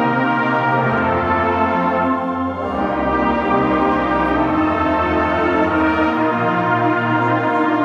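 Brass band playing a slow tune in long held chords, with no drums heard.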